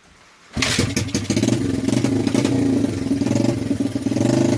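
Honda XL100S's small single-cylinder four-stroke motorcycle engine firing up about half a second in and running on at a steady tick-over. It now idles after its blocked slow-running jet has been cleared and the carburettor cleaned.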